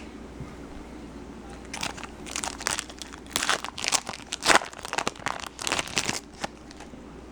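Wrapper of a Bowman Chrome baseball card pack being torn open and crinkled by hand, a string of irregular crackles starting about two seconds in and stopping near the end.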